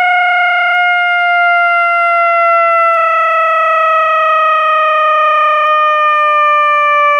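Fire truck siren sounding one loud, steady tone that slowly slides down in pitch.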